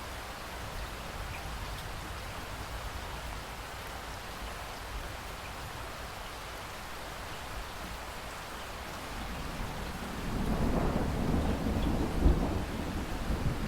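Steady rain falling, with a rumble of thunder building up about two-thirds of the way through and cracking loudest near the end.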